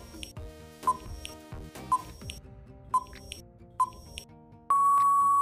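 Quiz countdown-timer sound effect: a short beep about once a second over soft background music, then a long steady beep near the end as the countdown runs out.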